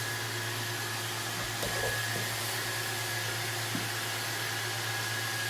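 Roomba robot vacuum running steadily: a constant whirring hiss of its motor and brushes with a steady low hum and a thin high whine.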